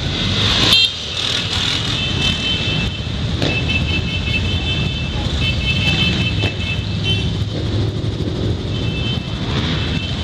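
Quad bike (ATV) engines idling and running slowly in a queue, a steady low rumble. A thin high tone comes and goes over it, and there is a brief loud rush about a second in.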